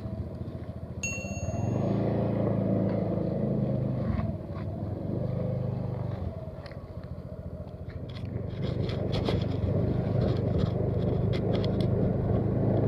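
A small engine running, easing off about four seconds in and picking up again about eight seconds in, with scattered clicks and rattles.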